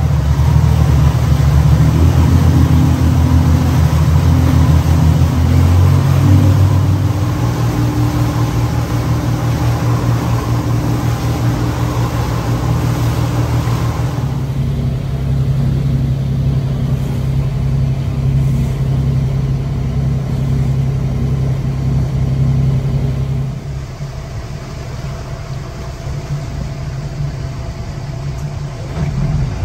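Motorboat engine running steadily while under way, a low hum over a wash of water and air noise. Its note shifts a few seconds in, and it grows quieter for the last several seconds.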